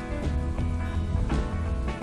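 Background music: a guitar track with repeated notes over a steady low bass.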